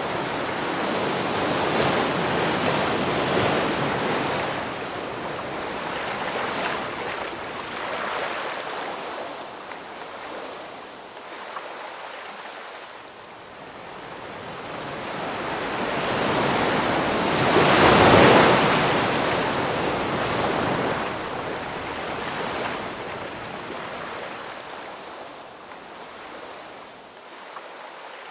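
Ocean surf: waves breaking and washing in slow swells of rushing noise. The loudest wave crashes about two-thirds of the way through, then fades.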